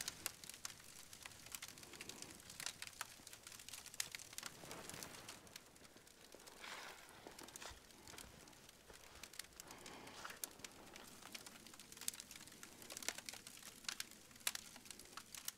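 Faint, irregular crackling and ticking of a hardwood lump charcoal fire with river-soaked hickory chunks smoking on the coals.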